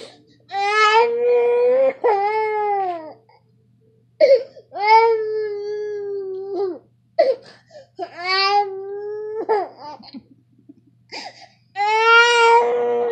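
A young child crying: a run of drawn-out wails, each one to two and a half seconds long and dropping in pitch at the end, with short breaks for breath between them.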